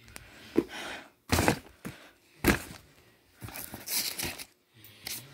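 Handling noise: a few sharp knocks and rustling as objects in a fabric storage bin are handled and the phone is moved, the loudest knocks about a second and a half and two and a half seconds in.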